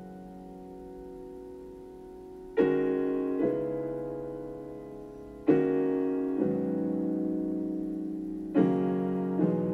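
Slow piano music: sustained chords struck about every three seconds, each joined by a second chord under a second later, and left to ring and fade.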